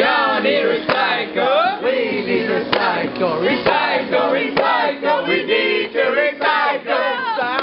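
A group of students' voices singing together, many voices overlapping at once.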